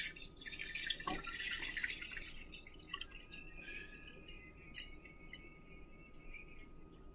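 Water poured from a plastic gallon jug into a glass electric kettle: loud splashing for the first two seconds, then a quieter, steady stream trickling in until shortly before the end.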